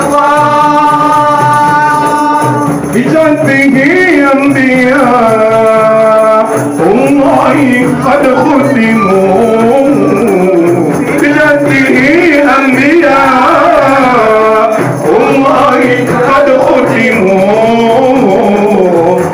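Group of men singing a Comorian madjlis devotional chant into an amplified microphone, accompanied by frame drums. It opens on a long held note, then the melody moves on in chant phrases.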